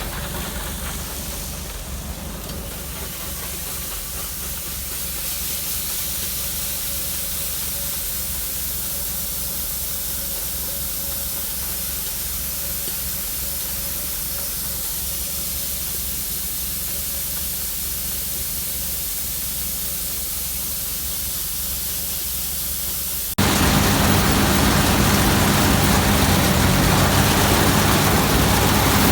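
Combine harvester running steadily while cutting wheat: a low engine drone under a constant hiss, with a faint steady whine. About four-fifths of the way in the sound jumps abruptly louder, with a heavier engine note.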